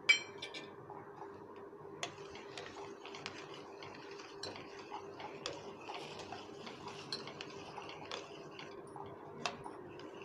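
A metal spoon stirring kheer in a stainless-steel pot, stirring in sugar just added, with scattered small clinks and scrapes against the pot. A single ringing metallic clink sounds right at the start.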